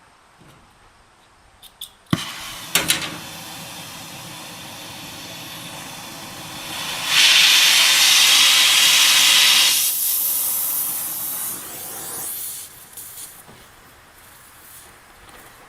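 Oxy-acetylene cutting torch: a few sharp pops about two seconds in, then the steady hiss of the flame, which swells into a loud hissing rush for about three seconds as the cutting oxygen blows through a rusted-out bolt head, then eases back down.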